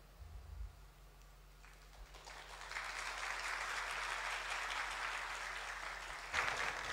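Applause: after about two seconds of near silence, clapping rises and goes on steadily, dying away near the end.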